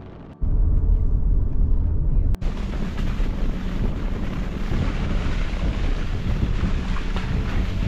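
Steady rushing water noise with wind buffeting the microphone as a deep rumble. The sound changes abruptly about half a second in and again about two and a half seconds in, at cuts between clips, and after the second cut a brighter hiss fills out the top end.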